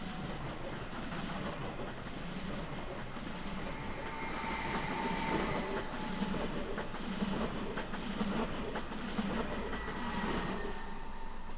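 A SÜWEX regional electric multiple unit rolling past at low speed, its wheels clacking over the rail joints about once a second over a steady rumble, with a faint electric whine in the middle; the sound thins out near the end as the last car goes by.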